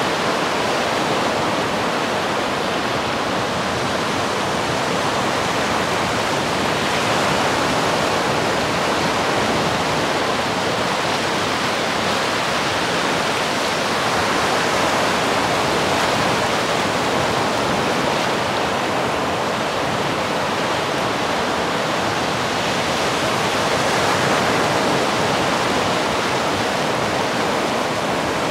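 North Sea surf breaking and washing in over a beach and breakwater: a steady rush of water that swells gently a few times.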